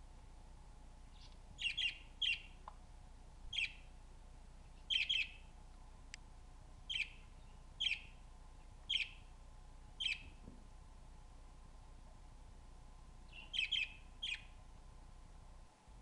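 Budgerigar chirping: about a dozen short, sharp chirps, in ones and twos roughly a second apart, then a pause of a few seconds and a quick run of three near the end.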